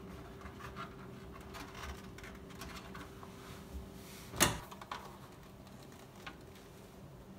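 A white plastic knife holder on a kitchen cabinet door being handled and slid off its metal bracket: light scrapes and taps, with one sharp plastic clack about four and a half seconds in.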